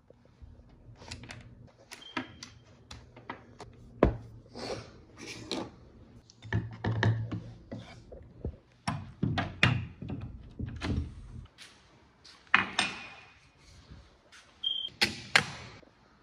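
Household handling noises: irregular knocks, clicks and thuds of objects being picked up and set down, with a low steady hum that stops about eleven seconds in and a short high beep near the end.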